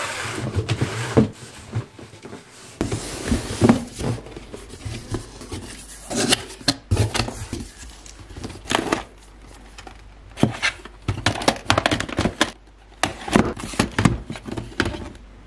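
A few low thumps as a cardboard box is handled, then plastic VHS cassettes clacking and knocking against one another in irregular bursts as a hand rummages through them in the box.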